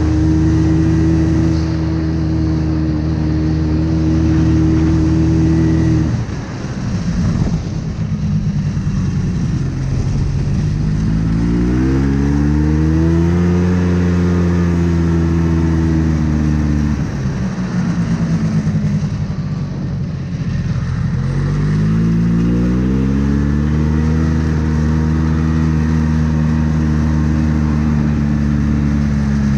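Yamaha Bravo snowmobile's single-cylinder two-stroke engine under way. It runs at a steady pitch, eases off about six seconds in, and climbs again. It drops back once more near the middle and then picks up to hold steady.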